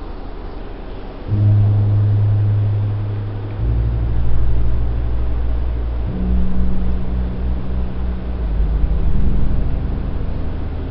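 Deep, sustained drone tones that come in about a second in and step to a new low pitch every two to three seconds, over a faint steady hiss.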